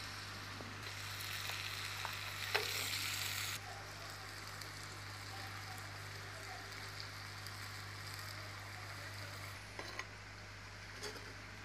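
Chopped raw mango and vegetables sizzling in oil in a clay pot over a wood fire, with a slotted metal ladle stirring through them. The sizzle is louder for the first few seconds, then settles to a steady hiss, with a few light clicks of the ladle near the end.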